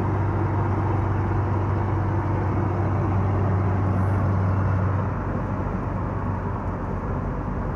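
Road vehicle driving along: steady engine and road noise with a low hum that eases off about five seconds in.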